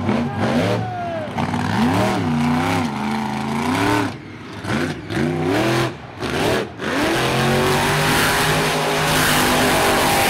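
Monster truck engine revving hard in repeated surges with short throttle lifts, then held at high revs for the last few seconds while the truck spins a donut, with a rushing hiss over the engine.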